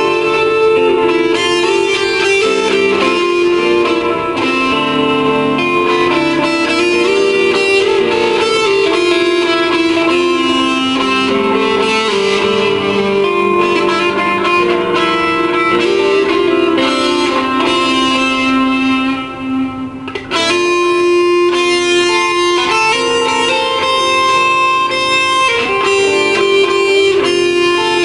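PRS S2 electric guitar with Bare Knuckles pickups, played through a PRS amplifier and Altec speaker with TC Electronic reverb and delay, playing sustained, ringing melodic lines. The playing thins out briefly about 19 seconds in, then resumes with a sharply struck note.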